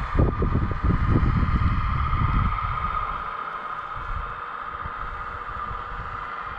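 Radio-controlled model excavator's hydraulic pump whining steadily, with a burst of low rumbling over the first two and a half seconds.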